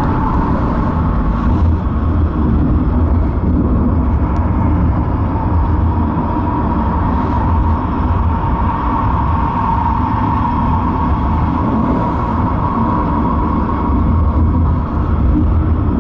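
Pitztaler Gletscherexpress cable funicular running up its tunnel: a steady low rumble with a steady whine riding above it.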